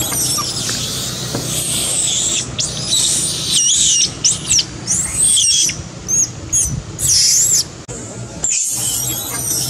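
Young macaque screaming in distress: several shrill squeals in quick succession, each rising and falling in pitch, the longest near the end.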